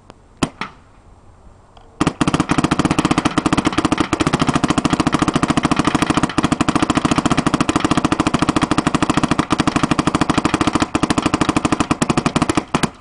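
Invert Mini electropneumatic paintball marker firing: a couple of single shots at the very start, then, about two seconds in, a rapid unbroken string of shots for roughly ten seconds that stops just before the end.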